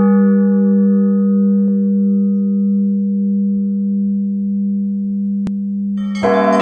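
A deep church bell's long ring, struck just before, slowly fading on one low hum. About six seconds in, several higher bells start ringing together in a quick peal.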